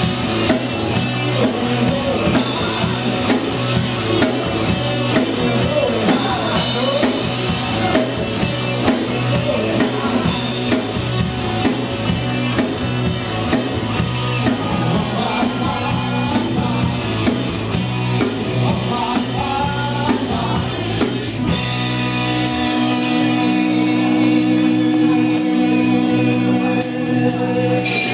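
Rock music with a drum kit and guitar. A little over twenty seconds in, the drums and low end drop out, leaving held guitar chords.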